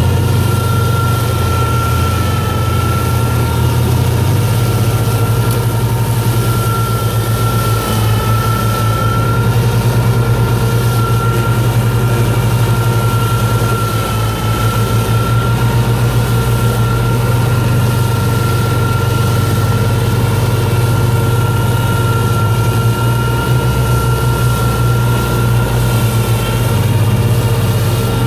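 Tractor diesel engine running steadily under load, driving a rear-mounted flail mower through low brush and weeds. A steady high whine sits over the engine's low hum.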